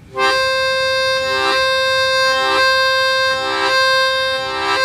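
Diatonic harmonica playing a single blow note on hole 4 in one unbroken breath, using a tongue block. The tongue repeatedly uncovers holes 2 and 3, so lower chord notes pulse in about once a second under the steady note, a "tek tek tek" that sounds broken although the breath never stops.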